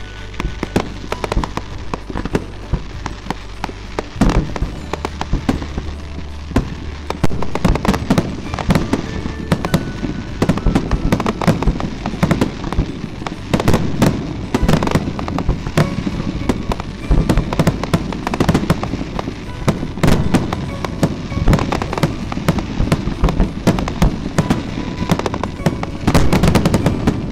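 Aerial firework shells bursting in a continuous barrage of bangs and crackles, with a dense flurry of reports near the end.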